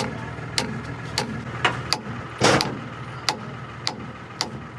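Metal hammer blows, struck again and again at a steady pace of about one every half second, the loudest about halfway through with a short ring, over a steady low hum.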